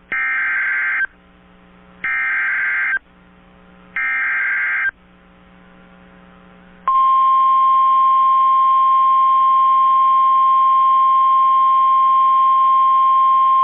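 Emergency Alert System SAME header: three roughly one-second bursts of digital data tones, about two seconds apart, that encode the coming warning. About seven seconds in a loud, steady single-pitch alert tone starts, the NOAA Weather Radio 1050 Hz warning alarm that signals a warning message is about to be read.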